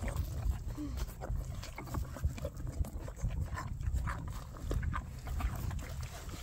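Half-Arabian, half-Tennessee Walker foal eating wet feed from a plastic tub: slurping and chewing, with many irregular small wet clicks and smacks.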